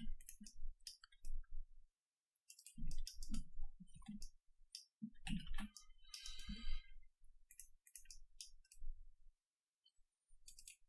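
Irregular clicking of a computer mouse and keyboard, in scattered clusters with short quiet gaps.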